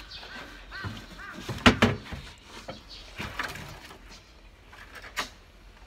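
A few sharp knocks and clicks of metal on metal from hand work on an opened-up Nissan GE13 diesel engine, the loudest pair about a second and a half in and another near the end.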